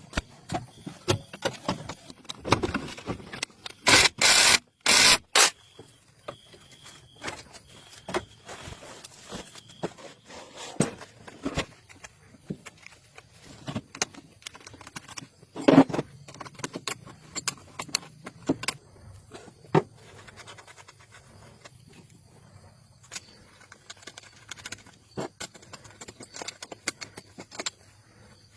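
Workshop handling noise from engine rebuild work: irregular metallic clinks, knocks and scrapes of tools and parts, with a few loud bursts about four to five seconds in and a sharp knock about halfway through.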